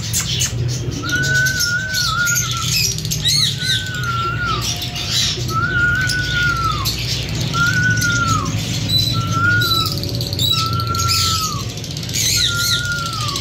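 Pet lovebirds chirping and squawking, with sharp high chirps between a repeated long whistle-like call that comes about every second and a half, each call rising a little and then falling off at its end.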